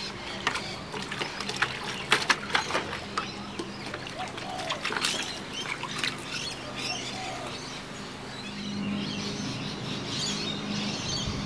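Husky puppy splashing and knocking about in a plastic bucket of water, a quick run of sharp splashes and knocks that dies away about six seconds in. Birds chirp in the background.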